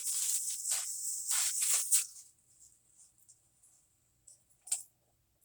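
Close-miked crackling crunches from crispy fried chicken for about two seconds, then quiet with a single small click near the end.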